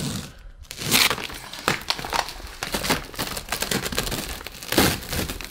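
Crinkling and crackling of a plastic padded mailer and packing tape being handled and pulled free from a cardboard box, with louder crackles about a second in and near the end.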